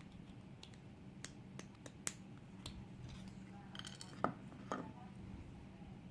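Small metal tools clicking and clinking against a euro lock cylinder, as the clip that holds the plug in is worked loose: eight or so sharp separate clicks, two of them louder, with a small cluster around the two-thirds mark.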